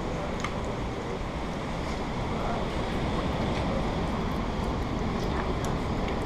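Storm of heavy rain and wind heard from inside a windowed cabin: a steady rushing with a low rumble, and scattered sharp ticks of drops striking.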